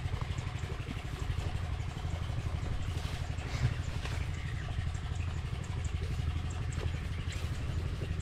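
Motorbike engine running steadily with a low, fast-pulsing rumble.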